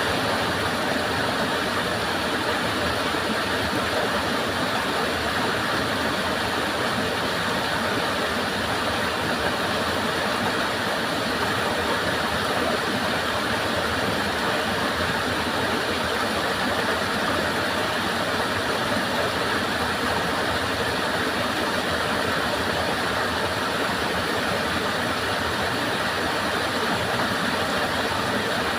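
Stream water flowing and rushing steadily, an even, unbroken sound.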